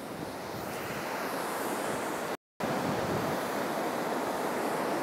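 Ocean surf washing steadily, heard as an even rush of noise. The sound cuts out completely for a moment about halfway through.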